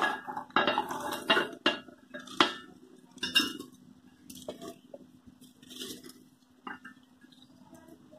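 Popcorn tipped and scooped by hand out of a metal pressure cooker into a steel bowl: metal rims clinking and knocking together with the rustle of popcorn, busy in the first three seconds or so, then only a few scattered knocks. A faint steady low hum runs underneath.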